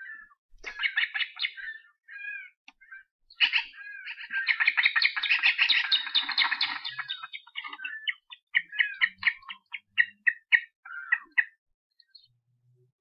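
Ospreys calling: sharp, high whistled chirps that run together into a fast, dense chatter for a few seconds in the middle, then break into separate chirps again. An adult osprey is coming in to land on the nest.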